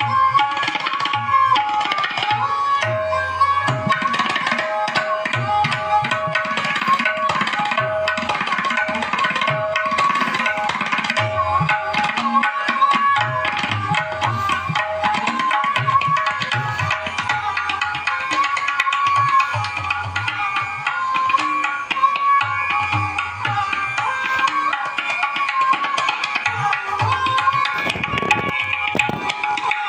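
A song with a drum beat and a held melody line, played through a Philips 8-inch full-range speaker for a sound-quality test.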